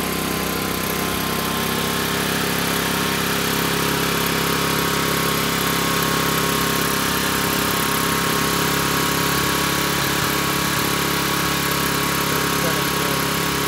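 Small single-cylinder OHV engine fitted with a Thunderstorm Generator unit, running steadily at an even speed.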